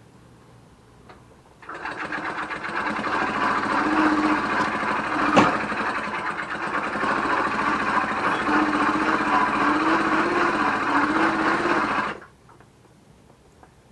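A CDH 80 two-stroke bicycle engine's crankshaft and magneto spun over mechanically to give the oscilloscope an ignition signal: a steady mechanical whirring that starts abruptly about two seconds in and cuts off about twelve seconds in, with one sharp knock near the middle.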